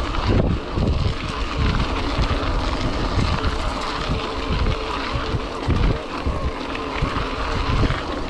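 Wind buffeting the microphone in uneven low gusts, over the steady running noise of a mountain e-bike riding a singletrack trail.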